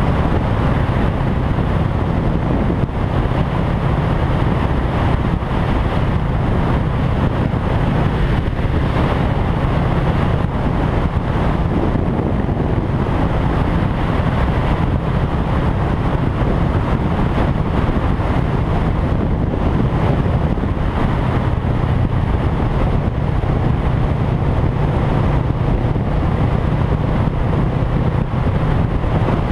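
Motorcycle cruising at highway speed: wind rushing over the microphone with the engine's steady drone underneath.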